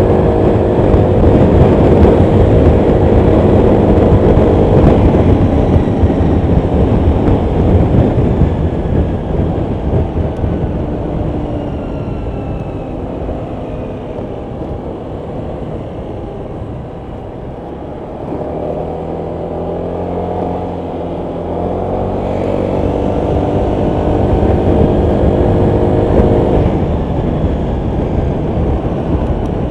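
Honda PCX 125 scooter's single-cylinder four-stroke engine running under way, heard from a microphone in the rider's front pocket. It eases off through the middle and then builds again as the scooter pulls away.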